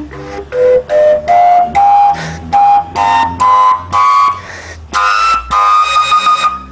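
Fujara, the long Slovak overtone flute, overblown up its overtone series: a run of short breathy notes climbing step by step, ending on a longer held high note. The run shows how high into the overtones this fujara reaches, which the players take as a mark of a good instrument.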